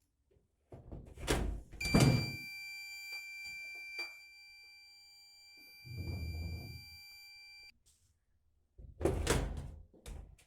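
Door thumps, and with one of them a homemade door alarm's buzzer starts a steady high-pitched tone. The tone holds for about six seconds and cuts off suddenly. More thumps follow near the end.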